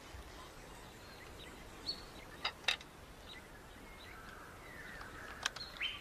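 Faint outdoor ambience with a few short high bird chirps, the sharpest pair about two and a half seconds in and another near the end.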